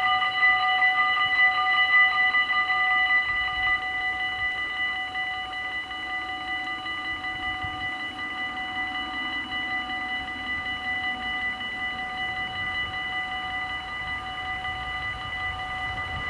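Level-crossing warning bells at a Dutch automatic half-barrier crossing, ringing rapidly and continuously to warn of an approaching train while the barriers lower. The ringing grows quieter about four seconds in and carries on steadily.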